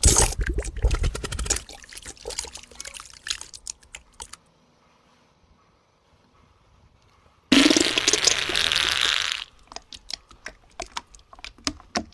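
A load of green waste sliding out of a tipped garbage truck body onto a pile: a loud rushing slide full of crackling twigs and branches that thins into scattered crackles over a few seconds. A second rush of material comes about seven and a half seconds in, lasts about two seconds, then breaks into sharp clicks and crackles.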